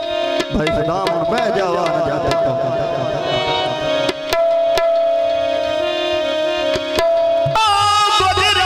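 Punjabi goon mahiye folk music: a steady held drone with irregular hand-drum strikes under a wavering sung melody in the first few seconds. Near the end a singer's voice comes in loud, with a strong vibrato.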